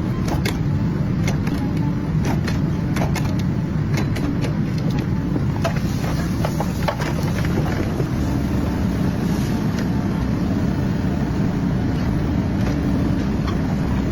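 Tree spade machine's engine running steadily, with scattered clicks and knocks.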